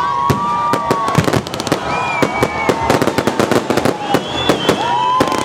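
Fireworks going off: rapid, dense crackling and popping, with whistling tones held and gliding over it.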